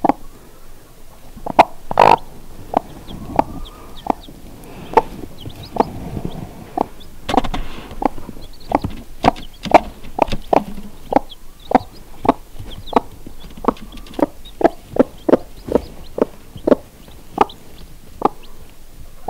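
Broody Icelandic hen clucking steadily to her chicks: a long run of short, low clucks at about two a second. A few faint high chick peeps come in between.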